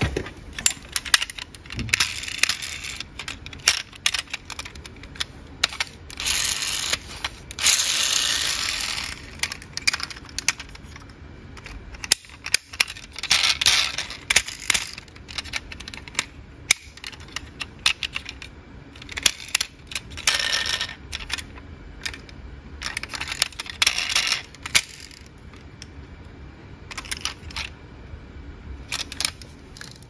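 Plastic and die-cast toy cars clicking and clattering against one another and against a cardboard box as a hand rummages among them, with stretches of scraping rustle now and then.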